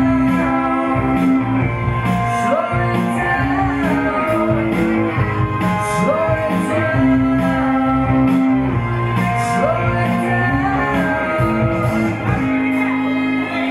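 Live song: electric guitar played with a man singing over it, to a steady beat.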